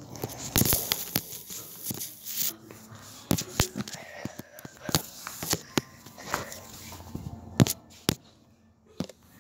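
Handling noise close to the microphone: irregular knocks, clicks and rustling as the recording device is moved about and covered, with a few sharper knocks standing out.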